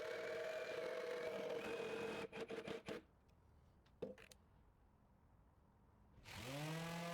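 Electric power-tool motor running with a steady whine, then cut off amid a few clicks and knocks about three seconds in. After a quieter stretch with a single click, a motor spins up near the end and settles to a steady pitch.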